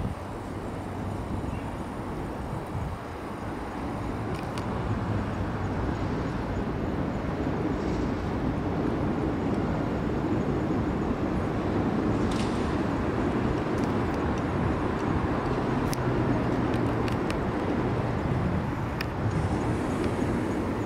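Steady rumble of city traffic, growing a little louder a few seconds in, with a few faint clicks.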